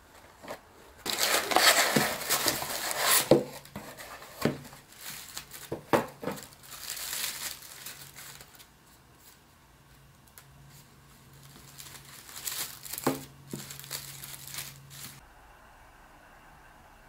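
Cardboard box packaging being opened and unwrapped by hand, with honeycomb kraft wrapping paper crinkling and rustling. The loudest crinkling comes about a second in, with further bursts and a few sharp clicks through the middle and near the end, then it goes quiet.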